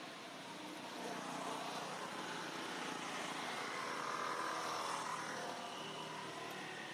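Engine noise of a passing vehicle, growing louder over a few seconds and then fading.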